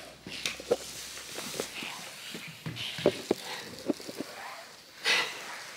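Soft handling sounds: a fleece blanket rustling and scattered light taps and knocks on a wooden floor, the sharpest about three seconds in, with a short breathy rush about five seconds in.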